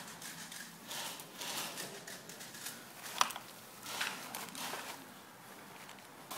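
Rustling and handling noises, like gear being rummaged through, with a sharp click about three seconds in.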